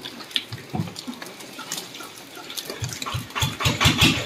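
Live catfish slithering and slapping wetly against each other and a plastic tarp as they are handled, with scattered clicks. About three seconds in, an engine starts running with a steady low throb of about six beats a second, and it grows louder.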